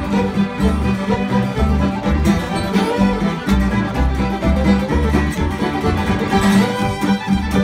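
A string band of two fiddles, a banjo and an upright bass playing a fiddle tune together, the fiddles carrying the melody over the banjo, with the bass plucking a steady pulsing beat underneath.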